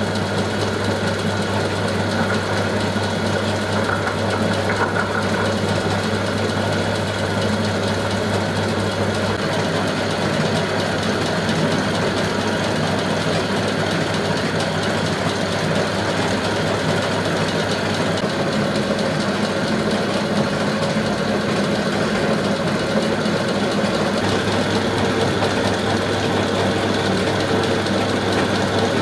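Pratt & Whitney No. 3 precision bench lathe running under power from an electric motor through a countershaft and flat belts: a steady hum with an even mechanical running noise from the spinning spindle, pulleys and belts.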